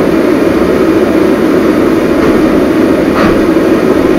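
Loud, steady rumble of a vehicle on the move, heard from inside: engine and road noise.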